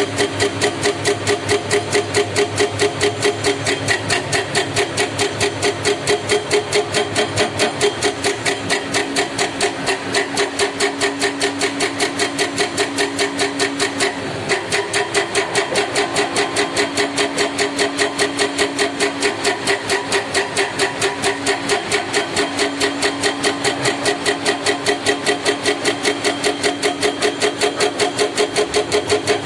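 Heavy diesel engine running steadily, with an even, fast pulsing, briefly dipping about halfway through.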